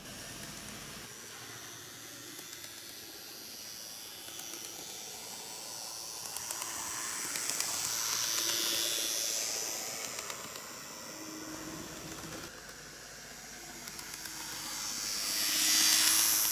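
KATO N gauge EF81 300 model electric locomotive running light on model track, its motor whirring and wheels rolling on the rails. It passes close twice, growing louder as it approaches and fading as it moves off, the second pass about 16 seconds in being the louder.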